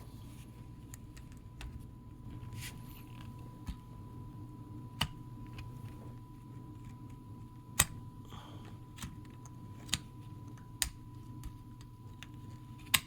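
Small tool clicking and scraping against a wristwatch's case back as it is pried open: about half a dozen sharp, separate clicks over a faint steady hum.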